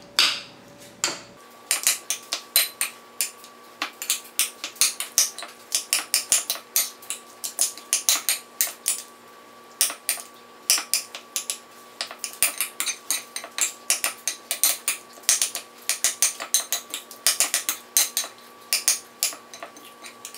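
Metal spoon mashing guacamole in a ceramic bowl, clinking and scraping against the bowl in quick, irregular strokes, a few knocks a second.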